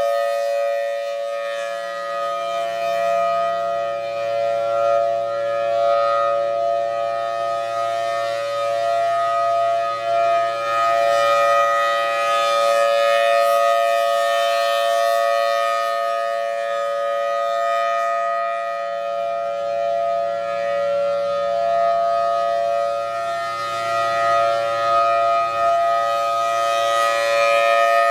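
Federal Signal Thunderbolt 1003 outdoor warning siren sounding its steady Alert tone, a held two-note chord that swells and fades every several seconds as the rotating horn sweeps past.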